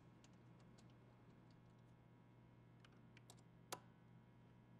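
Near silence broken by scattered faint metallic clicks of a hand driver and cap screws being fitted into the saw's motor mount, with one sharper click about three-quarters of the way through.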